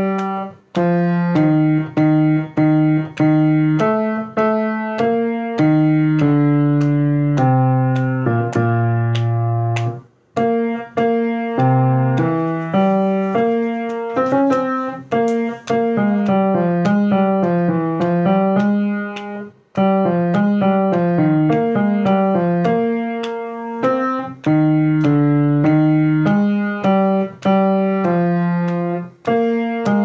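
Piano playing chords over a changing bass line in a steady rhythm, pausing briefly twice.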